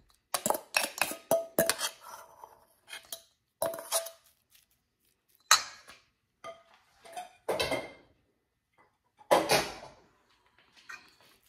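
A metal fork scraping and knocking against stainless steel mixing bowls as mashed potato is scraped from one bowl into another: irregular clinks and scrapes, some with a short metallic ring, with quiet gaps between.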